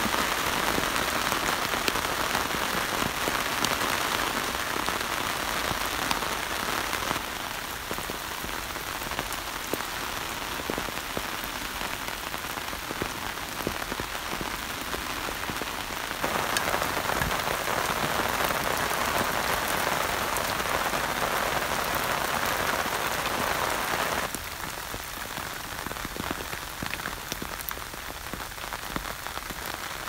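Steady rain hissing down on a canvas tarp and the forest around it. The level steps down about seven seconds in, rises again at about sixteen seconds and drops back near twenty-four seconds.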